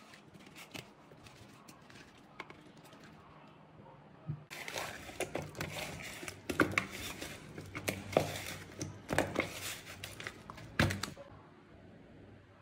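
Hands tossing and rubbing spice-coated cucumber slices in a glass bowl: a dense run of crackly, clicking handling noise from about four and a half seconds in until about eleven seconds in.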